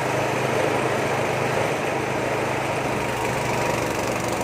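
Small Nishikawa engine running steadily, driving a peanut grinding mill.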